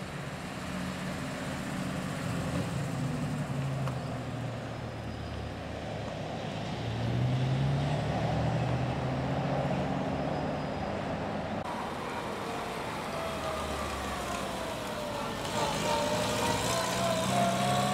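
A classic 1950s Ford convertible drives off slowly, its engine running steadily. Then a Sunbeam hatchback pulls away, its engine note rising as it accelerates, dropping briefly, then climbing again and getting louder.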